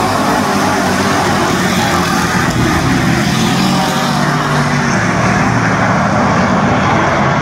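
A pack of dirt-track race cars running hard around the track, many engines together in a loud, steady drone, with one car passing close by right at the start.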